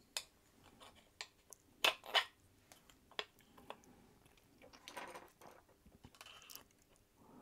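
Handling noise from reassembling a small brushed DC spindle motor: scattered light clicks and knocks of its metal parts, with two sharper knocks about two seconds in, and short crinkly rustles near the end.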